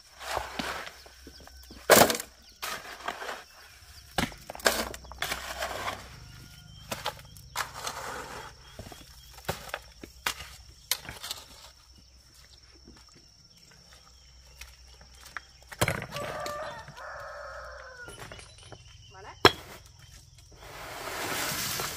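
Rocks being handled, knocking and clacking against each other in scattered sharp knocks with scraping between them. A drawn-out call sounds about two-thirds of the way through.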